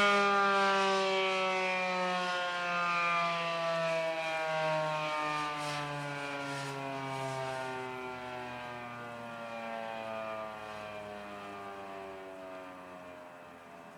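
Federal Signal 2001 SRNB electromechanical tornado siren winding down at the end of its alert, its tone sliding steadily lower and fading as the rotor coasts to a stop.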